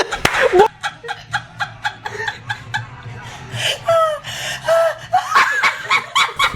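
Several people laughing and giggling in short bursts, with a few rising and falling squeals of laughter in the second half.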